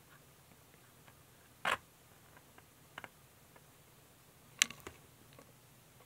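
Quiet room tone with a few short, sharp clicks and taps of handling noise: a louder one a little under two seconds in, a few faint ticks around three seconds in, and another loud click followed by smaller ones about four and a half seconds in.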